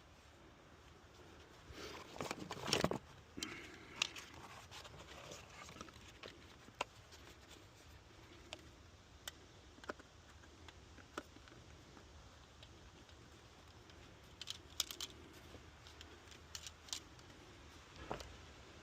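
Faint handling noises: scattered clicks, light metallic clatter and rustling, busiest about two to three seconds in and again with a cluster of sharp clicks near fifteen seconds. No engine is running.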